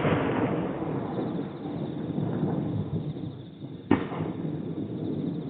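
Distant aerial firework shells bursting: a loud boom right at the start rolls on as a long rumbling echo off the surrounding mountains. A second sharp boom comes about four seconds in, and its echo dies away slowly.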